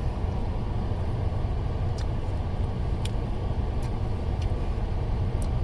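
A few faint crunches of frozen candy-coated grapes being chewed, over a steady low rumble.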